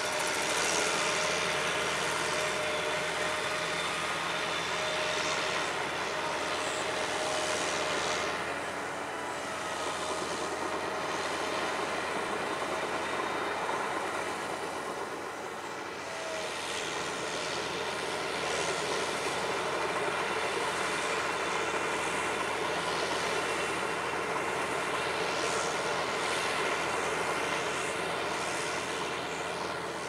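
Crawler tractor's engine running steadily as it works. The sound eases off briefly twice, about nine and fifteen seconds in, then picks up again.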